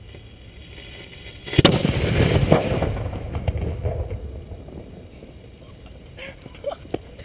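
Homemade pipe bomb exploding: a sharp blast about one and a half seconds in, a second crack about a second later, then the noise dies away over a few seconds. A few faint knocks near the end.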